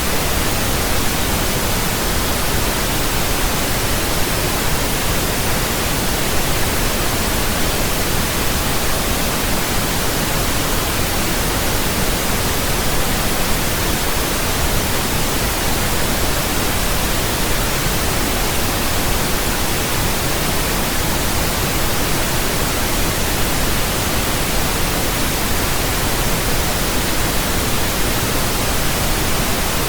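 Synthetic pink noise: a loud, steady, even hiss across all pitches, deeper than white noise, with no change throughout.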